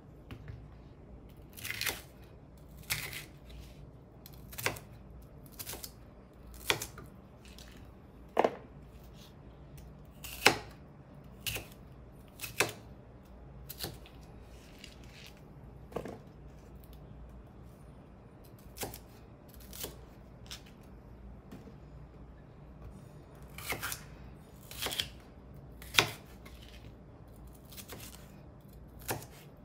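Chef's knife slicing green bell pepper on a plastic cutting board: crisp, irregular cuts, each ending in a tap on the board, one every second or two.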